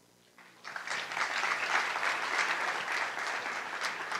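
Audience applause, starting a little over half a second in and holding steady.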